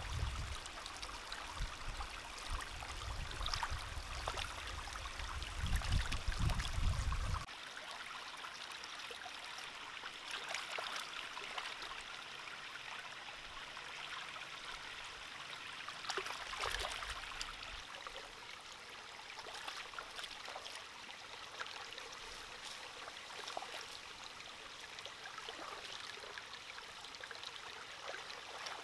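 Shallow stream running over rocks, with small splashes as hands wash food in the water. A low rumble underneath cuts off suddenly about seven seconds in.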